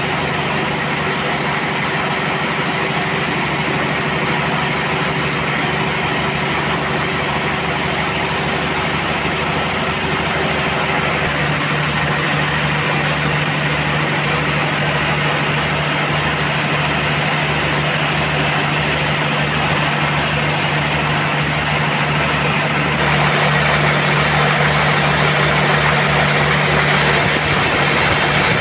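Sawmill machinery running with a steady engine-like drone. A low rhythmic pulsing joins it about a third of the way in, and the sound turns brighter and hissier over the last few seconds.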